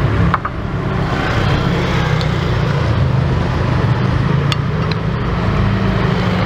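Steady low engine hum, like an idling motor, drowns out everything else. A couple of faint clinks from a spoon on a plate sound about half a second in and again past the middle.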